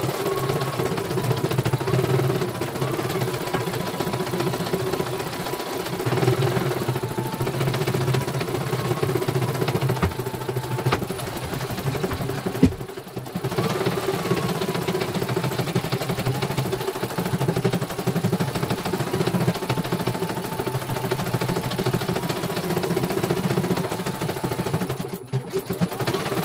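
CNY computerized embroidery machine stitching a design, its needle mechanism running in a fast, steady mechanical rhythm. The sound drops briefly twice: about halfway through, with a sharp click, and again near the end.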